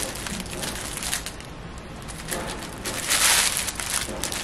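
Curly wig hair being handled and fluffed close by: a dry rustling crackle of many small clicks, with a louder swish about three seconds in.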